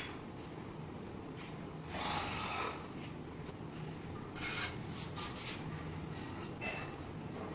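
Scraping of a hand tool on a granite strip, working the adhesive along its edge. There is one longer scrape about two seconds in, a quick run of short strokes around five seconds, and one more near the end.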